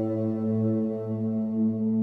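Background ambient music: a sustained synthesizer drone on a low held note, swelling gently.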